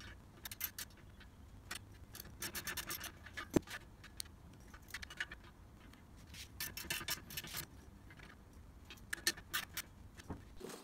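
Small hand ratchet clicking in several short runs of rapid clicks as the bolts holding an exhaust deflector to a small mower engine are tightened, with one sharp metal knock about three and a half seconds in.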